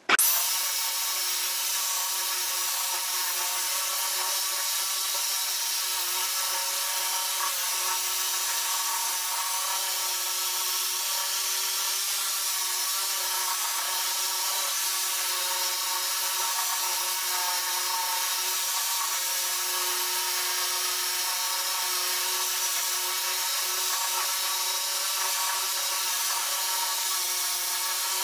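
Twin-head electric car polisher switching on at the very start and then running steadily with a level whine, its pads working polishing compound into a car's painted hood as a first cut against wash scratches.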